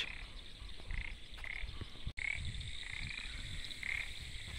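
Frogs croaking in a wetland: short calls repeated every half second to a second, over a steady high tone.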